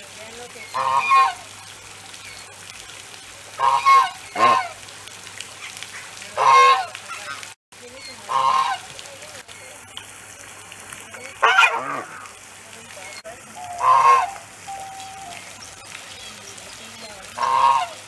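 African goose, a domestic breed descended from the swan goose, honking loudly: about eight short honks, one to three seconds apart, two of them in a quick pair near the 4-second mark.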